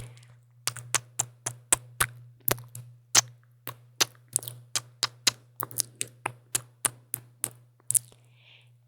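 Mechanical keyboard keys pressed one after another, sharp clacks at about three to four a second, stopping about eight seconds in.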